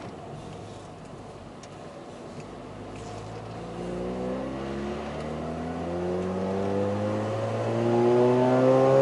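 Mazda RX-8's two-rotor rotary engine running steadily, then revved up slowly and smoothly from about three and a half seconds in, its pitch and loudness rising together. It is a test rev, made to find an annoying noise that comes only at certain engine speeds.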